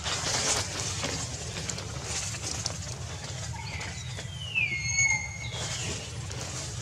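A high whistled animal call about four to five seconds in: it glides down in pitch and then holds a steady note for a moment before stopping. Beneath it is light rustling and a steady low hum.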